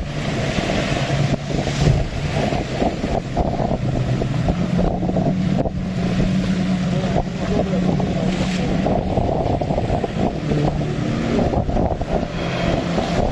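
Motorboat engine running under way in a choppy sea, its pitch rising about four seconds in and dropping back near ten seconds, with wind buffeting the microphone.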